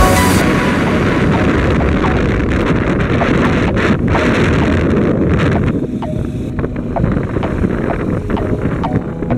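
Wind buffeting the microphone on a moving bike, with a steady road rumble and scattered short knocks and rattles.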